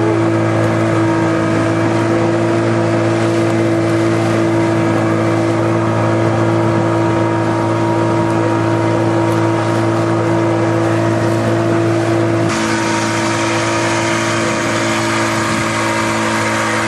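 Outboard motor of a small fishing raft running steadily at cruising speed, a constant hum with no change in pitch. About twelve seconds in the sound shifts suddenly: the low hum drops back and a hissier rushing noise comes up.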